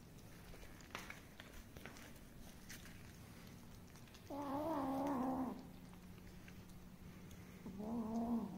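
Stray cat meowing twice, with a wavering pitch: a long meow about four seconds in and a shorter one near the end.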